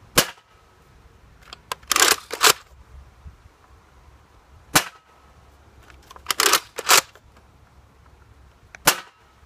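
Nerf Rival Apollo XV-700 spring-powered blaster firing three sharp shots about four seconds apart. Between the shots come double clacks as the priming handle is pulled back and pushed forward.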